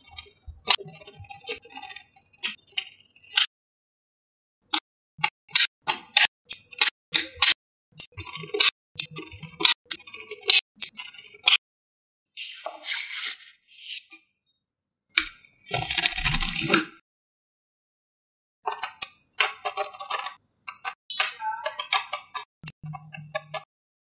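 Small magnetic balls clicking and snapping together in quick runs of sharp clicks. About halfway through, two longer rattles of balls sliding against each other break in.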